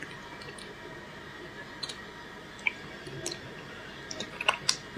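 A metal spoon clicking against the inside of a roasted beef bone as marrow is scooped out, with small wet sounds: a few scattered clicks, the sharpest near the end.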